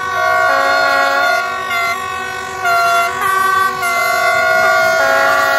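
Several locomotive air horns sounding together at different pitches in a long, overlapping chorus. Individual horns cut in and out every second or so, and the sound drops briefly about two seconds in before swelling again.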